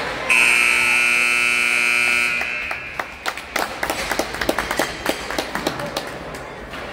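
Ice rink's period horn sounding: a loud, steady buzzing tone that starts suddenly, holds for about two seconds and then dies away, marking the end of the period. It is followed by a scattering of sharp claps and clicks.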